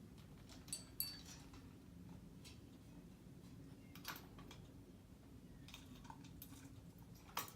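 Near silence: room tone with a few faint, scattered clicks, the loudest near the end.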